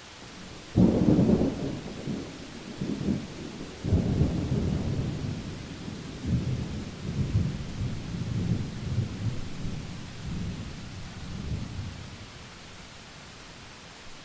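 Thunder over steady rain hiss: a sudden loud clap about a second in, a second burst a few seconds later, then a rolling low rumble that dies away near the end.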